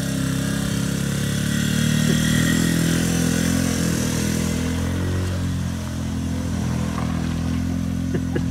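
A Can-Am Outlander 450 ATV's single-cylinder engine runs steadily under load, held at modest throttle because the engine is still in its break-in period, as it tows a delivery van out of mud. The van's own engine runs along with it.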